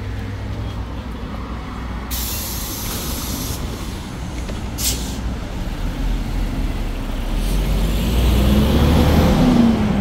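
Hyundai Green City city bus's C6GB CNG engine running low, with a hiss of compressed air from the air brakes about two seconds in that lasts a second and a half, and a short hiss near the middle. Near the end the engine note rises.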